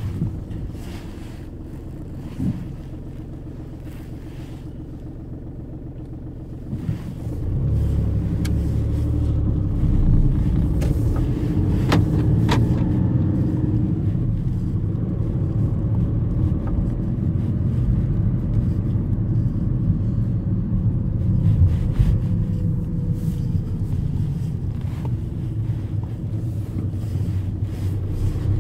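Cabin sound of a Volkswagen car on the move: engine and road rumble, fainter for the first several seconds and then louder from about seven seconds in, with a few light clicks.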